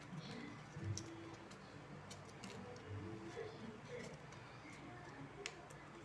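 Faint, scattered clicks and taps from paper being handled while a paper craft is made, with a couple of sharper ticks about a second in and near the end.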